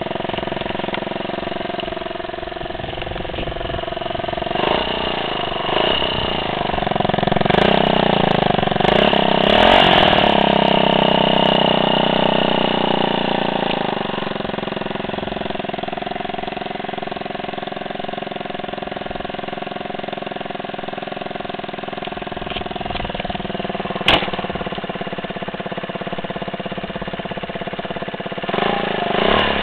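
Gilera DNA 125 scooter's single-cylinder four-stroke engine running at idle through an aftermarket carbon end can with its baffle fitted. The revs rise and fall a few times with light throttle about a quarter of the way in, then settle back to a steady idle, with one sharp click later on.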